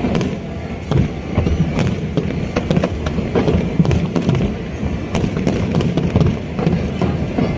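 Aerial fireworks display: many rapid, overlapping bangs of shells bursting, with no pause, over a continuous low rumble.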